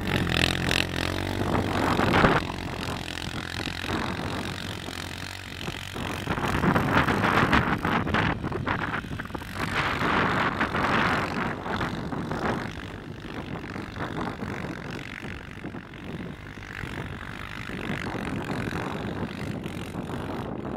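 TGB Target 550 quad bike's engine revving hard as it pulls away through deep snow, then rising and falling several times with the throttle as it is ridden further off.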